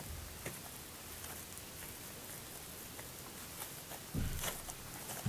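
Soft yeast dough spread with boiled condensed milk being rolled up into a log by hand: faint sticky crackling and light handling noises, with a soft knock about four seconds in.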